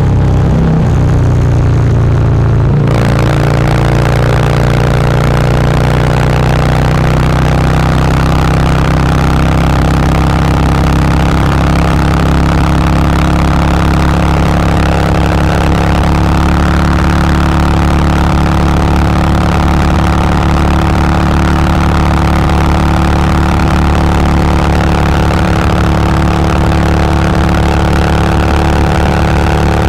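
Harley-Davidson CVO's Twin Cam V-twin engine running at a steady cruising speed, heard from on board, with a hiss of wind and road noise that comes in strongly about three seconds in.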